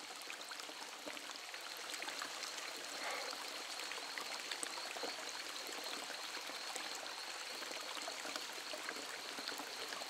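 Natural spring water trickling steadily from a leaf spout and splashing onto rocks.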